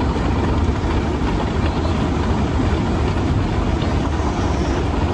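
Library escalator running: a steady mechanical rumble with a deep low hum and no change in pace.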